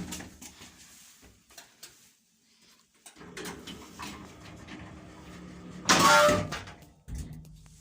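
Passenger elevator car running with a steady low hum, then a loud, short squeal of several pitches about six seconds in: the lift's squeak.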